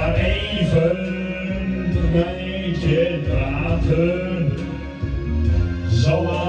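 A man singing into a handheld microphone over instrumental accompaniment, with long held notes that bend in pitch.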